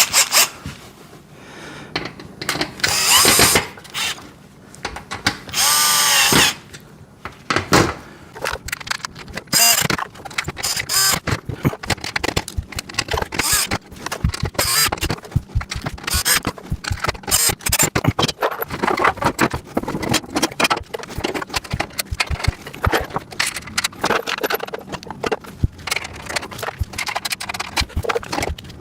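A power drill/driver runs in two short bursts, about two and a half and six seconds in, its pitch shifting as it speeds up and slows, while caster bolts are driven into the rack's metal tray. After that come many small metal clicks and rattles as the bolts, nuts and caster are handled and fitted.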